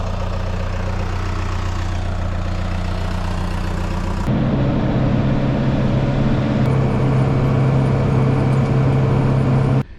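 Tractor engine running steadily while pulling a manure spreader across a field. About four seconds in, the engine becomes louder and its tone shifts.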